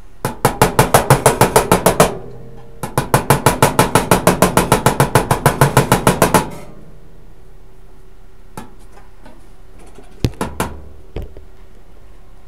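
Quick, even hammer blows on sheet steel, about six or seven a second, in two runs of a few seconds each with a short break between. A few lone, lighter taps follow near the end.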